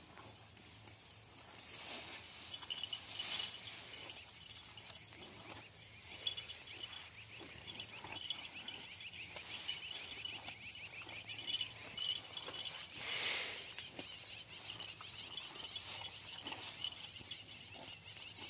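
Deoni cow and calf tearing at and munching fresh green fodder: irregular crackling and rustling of grass pulled and chewed, with a louder rustle about thirteen seconds in. Steady high chirping runs in the background.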